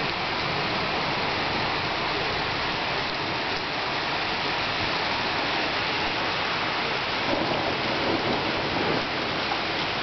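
Heavy rain pouring down onto a paved street and parked cars, a steady dense hiss that swells slightly about three-quarters of the way in.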